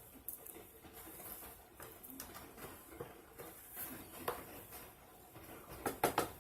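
A spoon scraping and tapping against a bowl and baking pan as moist cornbread dressing is scooped in: soft scattered scrapes, with a few sharper clicks near the end.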